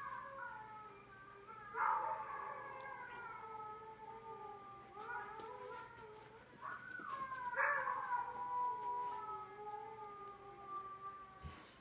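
A dog howling: a string of long, drawn-out howls, each starting high and sliding slowly down in pitch, with fresh howls beginning about two, five, seven and eight seconds in.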